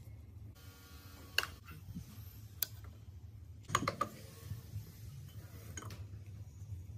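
A few sharp metallic clicks and clinks of a screwdriver and the loosened face plate against the cast-iron head of an old Mitsubishi industrial sewing machine, as the plate is unscrewed and lifted off. The loudest clatter comes about four seconds in, over a low steady hum.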